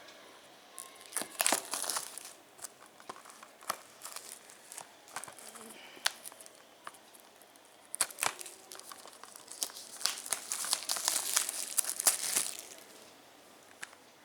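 Plastic shrink-wrap crinkling and tearing as a Blu-ray case is unwrapped, in two spells of crackling. Sharp clicks come from the plastic case being handled between them.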